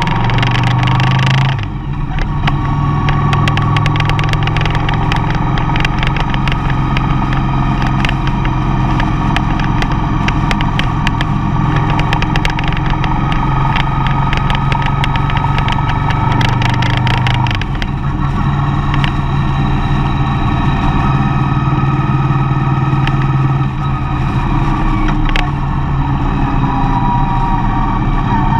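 Mercedes-Benz Vito van driving, its engine running with a steady drone and road noise. The engine note dips briefly three times, with many faint ticks over the top.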